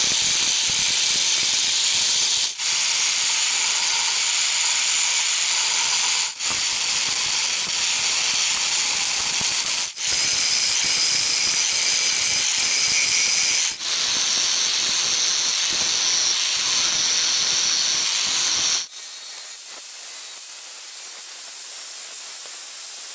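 Angle grinder's abrasive disc grinding the steel of a leaf-spring knife blank, a steady high whine over a harsh hiss. It breaks off for an instant about every four seconds, and over the last few seconds the sound goes thinner and higher.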